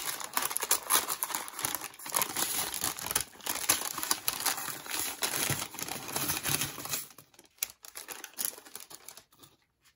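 Packaging around a packet of seed beads being crinkled and torn open by hand. The crackling is dense for about seven seconds, then thins to a few scattered crinkles.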